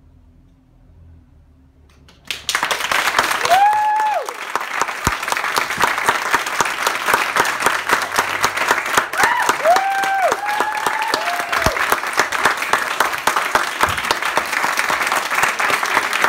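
Theatre audience applause breaking out suddenly about two seconds in and carrying on steadily, with a few voices whooping and cheering above the clapping.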